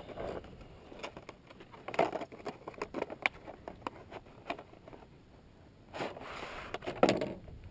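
Wiper blade packaging being handled and opened by hand: scattered clicks and rustles, with a longer rustling scrape about six seconds in.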